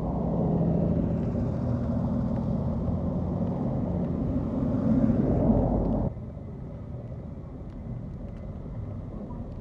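Road traffic on a slushy, snow-covered street: car engines running and tyres churning through wet snow as vehicles pass close, loudest about five seconds in. After about six seconds the sound drops suddenly to quieter, steadier traffic noise.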